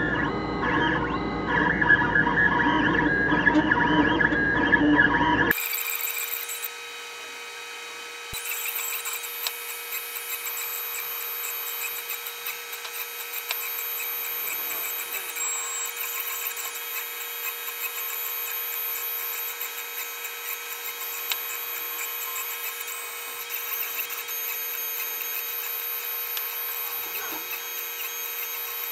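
Guitar music for the first five seconds or so, then a sudden change to a 3040 desktop CNC machine running. Its motors make a steady whine with a constant mid-pitched hum as the drag-knife holder moves across the vinyl.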